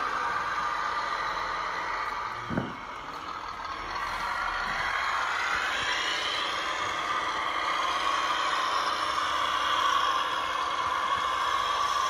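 Radio-controlled scale model vehicle's electric motor and gearbox whining steadily. The whine rises in pitch a few seconds in as the model speeds up or works harder, then holds. There is a short thump about two and a half seconds in.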